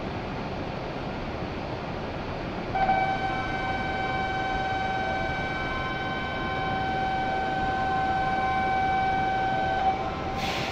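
Shinkansen platform departure bell: a steady electronic tone, one unchanging pitch, starts about three seconds in and rings for about seven seconds before cutting off, over the station's steady hum. A short hiss follows near the end.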